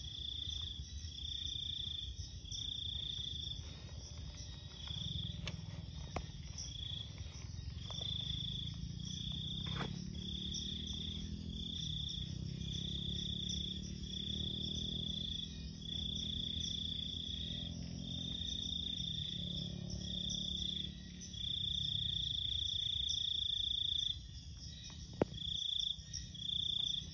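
Night insects calling, crickets chirping in a high trill that comes in repeated bursts of half a second to two seconds, over a steadier, higher buzz. A low rumble sits underneath through the middle, and a sharp click comes near the end.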